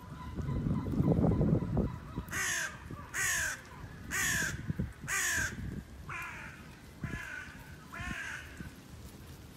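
A bird calling seven times, about once a second, each call a short falling cry; the first four are louder and the last three fainter. Before the calls, a low rumble fills the first two seconds.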